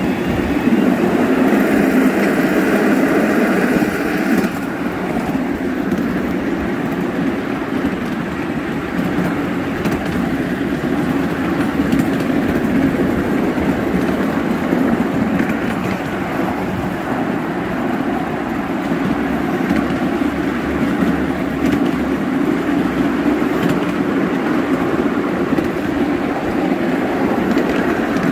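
Miniature steam railway train running along its track, a steady rumble of wheels on rail, with a hiss of steam for the first four seconds or so.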